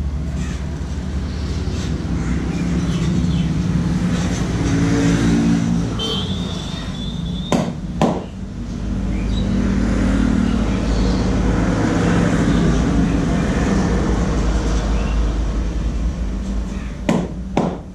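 Road traffic passing close by: motor vehicles running with a steady low rumble that swells twice as they go past. A brief high tone sounds part way through, and there are two pairs of sharp knocks, one pair mid-way and one near the end.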